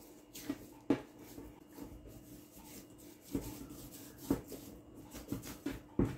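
A hand kneading and rolling a lump of water-softened date paste on a kitchen worktop: about six soft, unevenly spaced pats and thumps, with faint rubbing between them.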